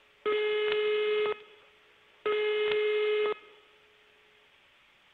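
Launch countdown beep tone: two long steady beeps, each about a second long and two seconds apart, sounding between the countdown calls as the rocket nears lift-off.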